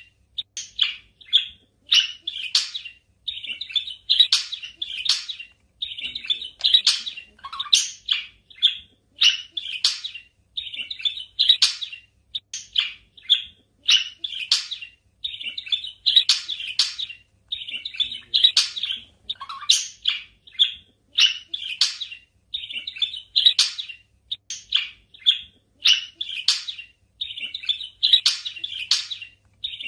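Budgerigars chirping: quick, high, scratchy chirps in short bursts separated by brief pauses.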